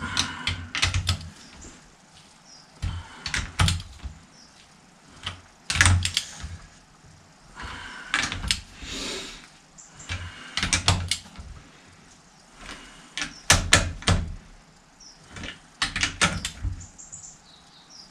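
Ratcheting torque wrench clicking in short bursts, about every two to three seconds, as cylinder head nuts are tightened down to a set torque.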